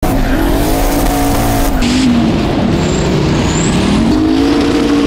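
Twin-turbo 5.3-litre V8 of a Corvette C6 drift car running hard over a steady rushing noise. The engine note drops about two seconds in, then climbs back up a little before four seconds.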